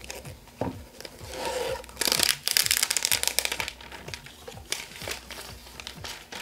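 Plastic packaging crinkling and rustling as it is handled, loudest for a stretch of about two seconds in the middle.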